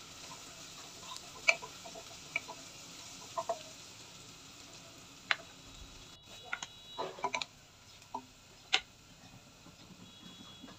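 Sliced onions frying in oil in a pot, a faint steady sizzle, with scattered sharp clicks and ticks.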